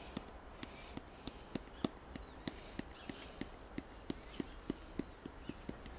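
Spice shaker jar of dry seasoning shaken in quick, even strokes, giving a faint click about three times a second.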